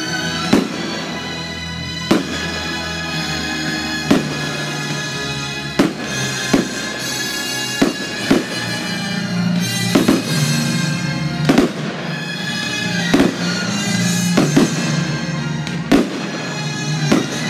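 Aerial firework shells bursting with sharp bangs every second or two, coming more often in the second half, over continuous music.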